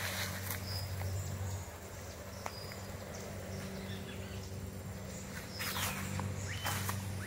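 Outdoor ambience: a few short, high bird chirps over a steady low hum, with a couple of footsteps near the end.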